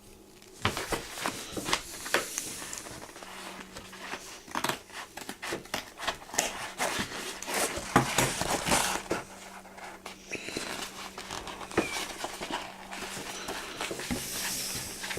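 A mailed package being torn open by hand: irregular ripping, rustling and crinkling of the mailer packaging, with many sharp clicks and scrapes.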